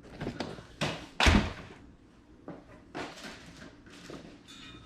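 A few sharp knocks and thuds of boxed toys being handled and tossed aside, the loudest about a second in.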